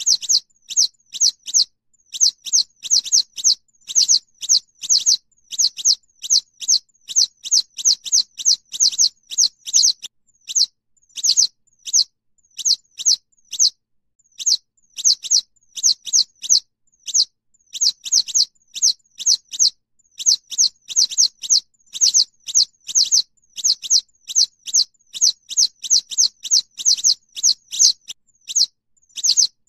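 Yellow wagtail contact calls: short, high, thin notes, each dropping in pitch, repeated in quick bunches of two to four, several a second and almost without pause.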